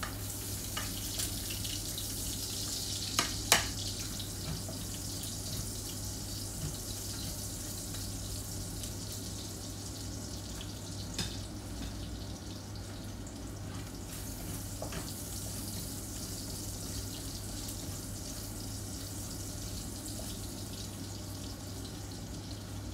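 Minced garlic sizzling in hot rendered pork fat in a frying pan at the start of sautéing; the hiss is strongest in the first few seconds, then settles to a steady sizzle. Two sharp knocks a little over three seconds in and a few lighter taps later, over a steady low hum.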